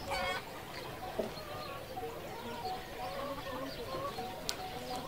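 Chickens clucking, with other birds calling.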